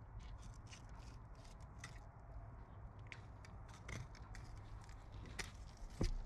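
Faint scratches and small ticks of a sheepshead being handled and cut with a fillet knife on a plastic cutting board, with one louder knock just before the end.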